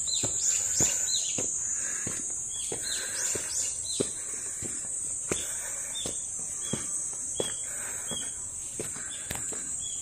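A steady, high-pitched drone of insects, with regular footsteps on a stone-paved path, roughly one to two steps a second.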